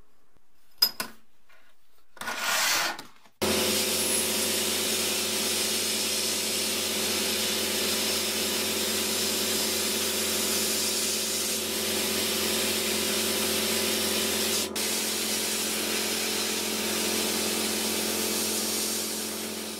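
A sandblaster gun blasting abrasive at a small rusty steel calendar plate to strip the rust. It makes a loud, steady hiss over a steady hum that starts abruptly a few seconds in, with a momentary break about three-quarters of the way through. Before the blasting begins there are two light clicks of thin metal plates being handled.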